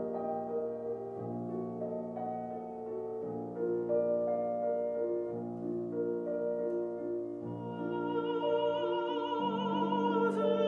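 Background music: slow, sustained chords whose bass changes about every two seconds, joined near the end by a wavering, vibrato melody line.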